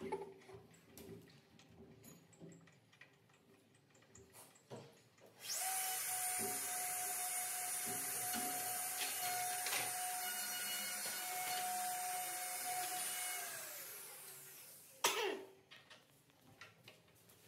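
An electric motor runs at a steady high whine for about nine seconds, then spins down, with a short sharp burst about a second later. Before that there are only a few faint clicks.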